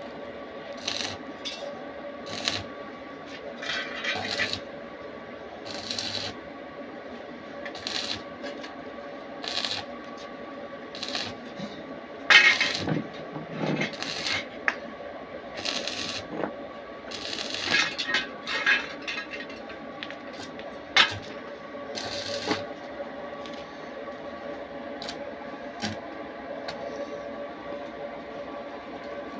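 Metal pieces being handled: irregular sharp clinks, knocks and short scrapes with a metallic ring, over a steady machine hum.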